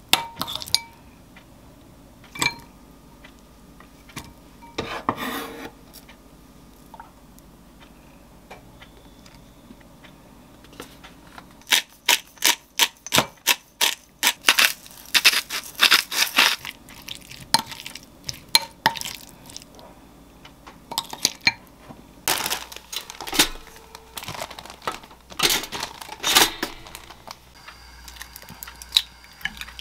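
Metal spoon clinking and scraping against a glass mixing bowl as avocado is mashed and stirred into guacamole. The strokes come as scattered single clinks at first, then in quick runs of many short strokes in the middle and second half.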